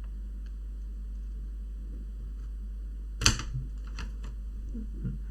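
Laptop casing parts being pressed together around a new charging-port cable: one sharp click about three seconds in, then a few lighter clicks, in a test-fit that does not seat because the cable is out of line. A steady low electrical hum lies underneath.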